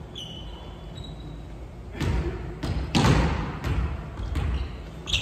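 A volleyball thudding on a wooden gym floor several times from about two seconds in, each hit echoing around the hall. A few short sneaker squeaks on the floor come before it.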